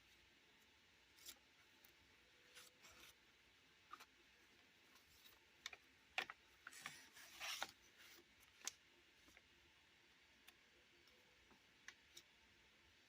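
Faint rustles and light clicks of art journal pages being turned and handled, with a longer rustle about seven seconds in.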